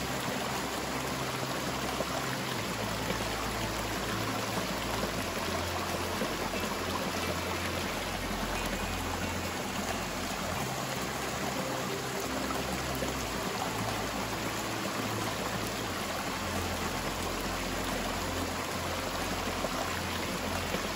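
Shallow river water rushing over rock ledges and small rapids, a steady even noise of flowing water.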